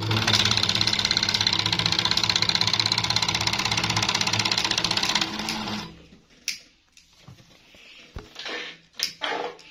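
Sewing machine running at a fast, even stitch rate for about five seconds, then stopping; a few light clicks and knocks follow.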